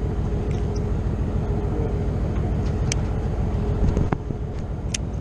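Boat engine running steadily with a low, even rumble, with a few light clicks over it and a louder knock about four seconds in.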